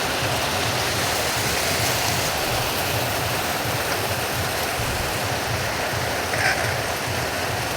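Steady hiss of heavy rain, with a single short bird call about six and a half seconds in.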